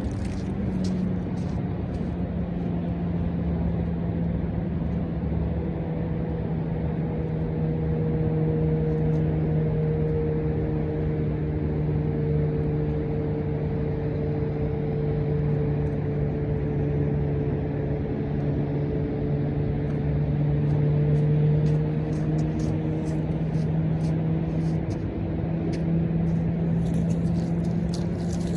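Homemade propane-fuelled RC boat engine running steadily at speed, a continuous drone whose pitch wavers only slightly.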